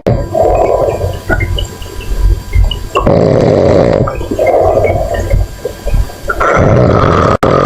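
A monkey snoring loudly in a steady rhythm of about one breath every three seconds. Each breath is a harsh rasp about a second long, followed by a shorter one.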